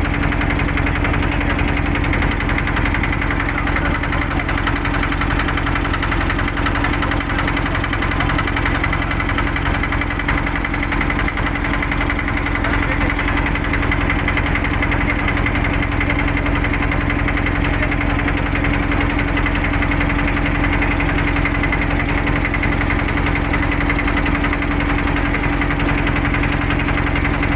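Motorboat engine running steadily at an even pitch, with a constant low hum.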